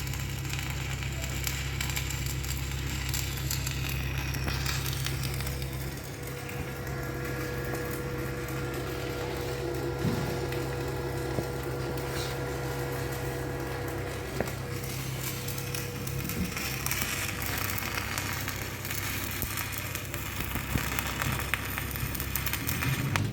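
Stick welding arc crackling and sizzling steadily as a 3.2 mm E6013 electrode burns at about 70 amps, with a steady low hum underneath.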